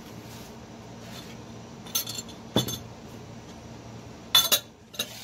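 Wooden spoon knocking and scraping against the metal pot while stirring a thick pudding mixture: a few sharp knocks about two seconds in, and a louder cluster near the end, over a steady low hum.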